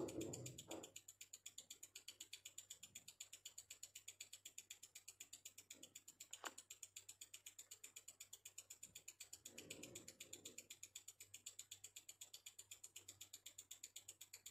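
Faint, even ticking of a Tissot automatic watch movement beating at 28,800 beats an hour, about eight ticks a second, with a steady rate and small beat error. A few soft handling bumps at the start and again near the middle.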